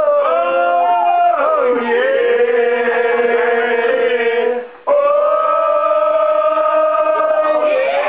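Male voices singing a team song, holding long notes, with a brief break about five seconds in before one long held note.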